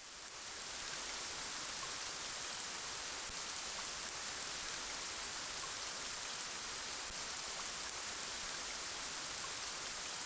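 A steady hiss of even, rain-like noise, weighted toward the high end, that swells over the first second and then holds level.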